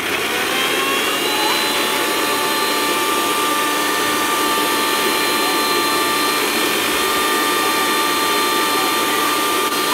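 Electric mixer grinder running with its steel jar, grinding a wet green masala paste: a steady rushing noise under a high motor whine, whose pitch settles in the first second or so and then holds.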